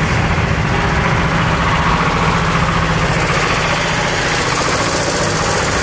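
An engine idling steadily: an even, unchanging low rumble.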